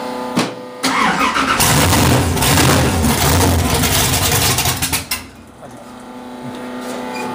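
Small-block Chevy 350 V8 in a mini pulling tractor, cold-started after sitting three months: a click, then the engine fires and runs loud for about four seconds before cutting off suddenly.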